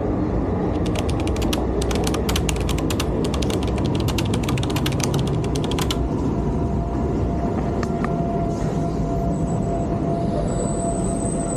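Tyne and Wear Metro train pulling into the platform: a continuous rumble with a rapid run of clicks for the first several seconds, then a steady rumble with a faint high whine near the end.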